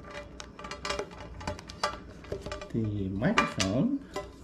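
Light clicks and clinks of a condenser microphone and its cable being picked up and handled, with a few words spoken about three seconds in.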